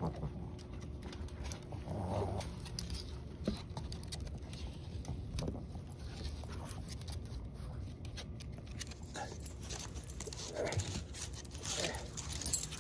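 Cavalier King Charles spaniel tugging and mouthing a plush toy held in a hand, with scattered soft clicks and scuffs and a few brief dog sounds.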